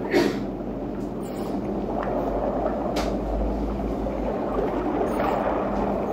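Steady underwater ambience: a low, rumbling watery noise. There is a brief thump just after the start and faint clicks about two and three seconds in.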